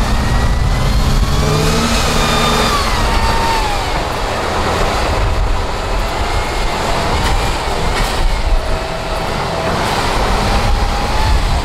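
Large diesel engine of an 8x8 off-road trial truck working hard under load as it crawls over rough dirt, its revs rising and falling with a whine that swings up and down in pitch.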